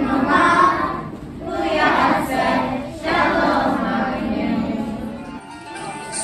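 A group of children singing together without accompaniment, in phrases broken by short pauses.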